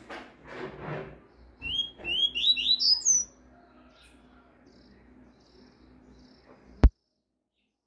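Double-collared seedeater (coleiro) singing a quick phrase of rising whistled notes, its tuí-tuí song, starting about two seconds in, after a few soft scuffling noises. Near the end a single sharp, loud click, after which the sound cuts out to silence.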